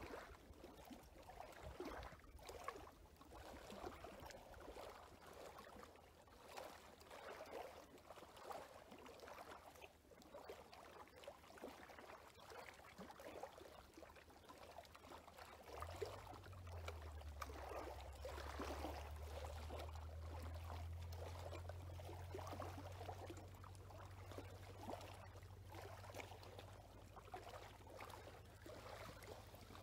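Faint trickling water. A low steady hum comes in about halfway through.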